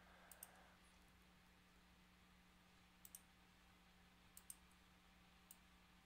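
Computer mouse clicking: quick pairs of clicks right at the start, about three seconds in and again a second or so later, then a single click near the end. A faint steady hum runs underneath; otherwise near silence.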